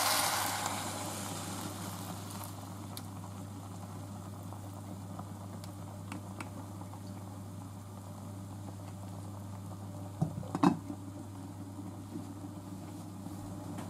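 Water poured from an electric kettle into a saucepan of onions and beef, tailing off within the first second or so. A steady low hum continues underneath. About ten seconds in, a couple of sharp clinks come as the glass lid is set on the saucepan.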